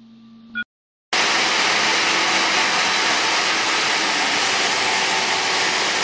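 Steady machinery noise on the floor of an optical fibre drop cable production line: a loud, even hiss that starts suddenly about a second in, after a brief faint hum and a moment of silence.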